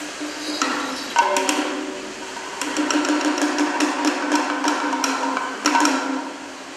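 Kathakali percussion accompaniment playing a fast run of sharp, ringing strikes, which pick up and grow denser about two and a half seconds in.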